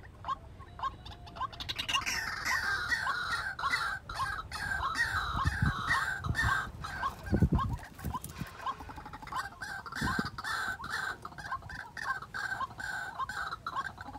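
White-breasted waterhens calling: a steady, monotonous series of short notes about two a second, joined about two seconds in by a second, louder series overlapping it. A few low thumps come near the middle.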